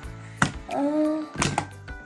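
FurReal Cinnamon interactive pony toy going into sleep mode: its motor whirs in short spells with two sharp mechanical clicks about a second apart, and a short electronic sound plays between them.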